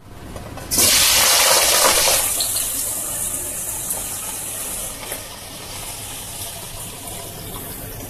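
Raw potato wedges dropped into hot corn oil for deep-frying: a sudden loud sizzle about a second in that eases after a couple of seconds into a steady frying sizzle.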